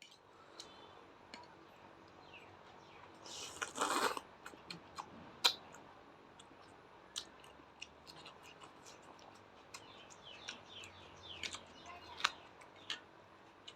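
Close-miked eating sounds: a person chewing and crunching food, with many small wet mouth clicks. There is one louder, longer crunch about three and a half seconds in.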